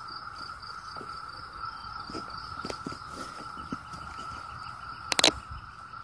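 Chorus of Brood II 17-year periodical cicadas: a steady, unbroken drone. A quick cluster of sharp clicks sounds about five seconds in.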